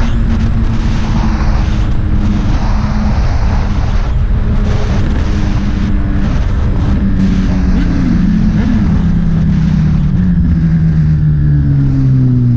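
Motorcycle engine running under way, its note holding steady and then falling steadily in pitch over the last few seconds as the bike slows.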